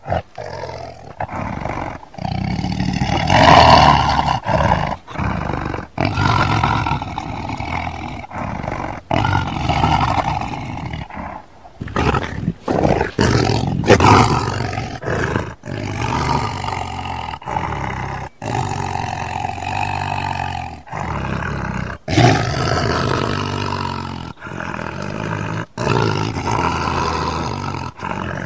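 Lion roar sound effects played one after another, many separate loud roars, each a second or two long, with abrupt cuts and short gaps between them.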